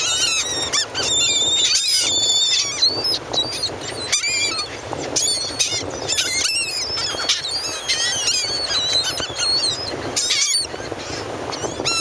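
A flock of laughing gulls calling close overhead: many short, overlapping cries that rise and fall in pitch, one after another with no break.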